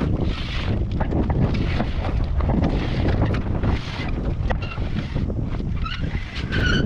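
Strong wind buffeting the microphone on a sailboat's deck, with many sharp flaps and knocks running through it. A few short high chirps come in the second half.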